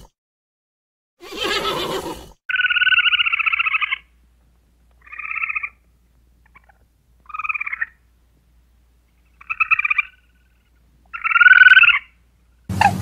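A horse gives one short, breathy call about a second in. Then an American red squirrel calls five times with rapid trilling chirrs spaced a second or two apart. The first chirr lasts about a second and a half; the later ones are shorter, and the last is the loudest.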